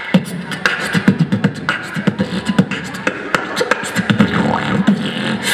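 A beatbox crew performing together through a PA system: vocal kick drums, snare and hi-hat clicks in a steady, fast beat.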